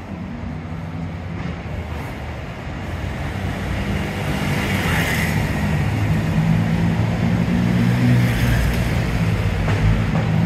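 Street traffic: vehicle engines running close by, with the noise growing louder from about four seconds in as vehicles pass.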